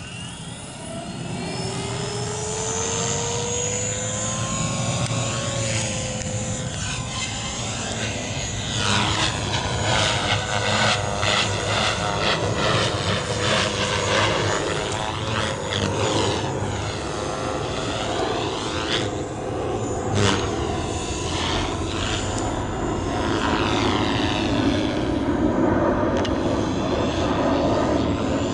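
Gaui X3 electric RC helicopter spooling up, its whine rising in pitch over the first few seconds. It then flies with a steady motor whine and rotor-blade buzz that shifts as it moves about the sky.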